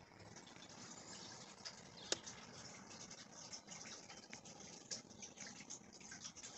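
Faint outdoor night ambience: a low hiss with scattered small crackling ticks and one sharp click about two seconds in.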